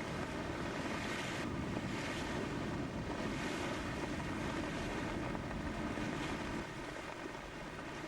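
Wind and rushing sea water around a sailing yacht under way, a steady noise with wind buffeting the microphone.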